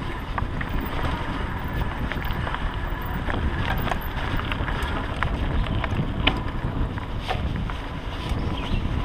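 Mountain bike rolling fast along a dirt singletrack: a steady rumble of tyres and wind on the microphone, with frequent short clicks and rattles from the bike jolting over bumps.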